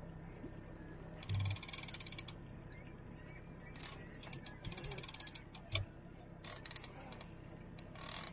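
Fishing reel's drag ratcheting in two quick bursts of rapid clicks, with a few single clicks after, as a hooked fish pulls line off the reel.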